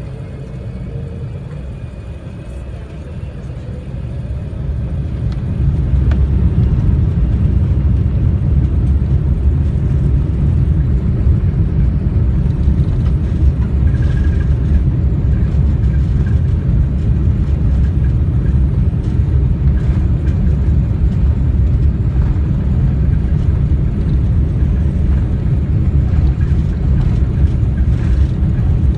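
Airbus A380 cabin noise as the engines spool up to takeoff power, building over the first few seconds into a steady, loud, low rumble of the takeoff roll.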